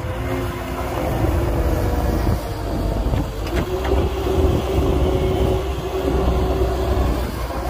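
Heavy diesel construction machinery running: a steady low engine rumble with a constant whine over it, and a few short knocks about three seconds in.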